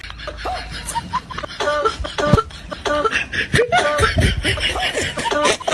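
A person's voice in short pitched bursts, with clicks between them.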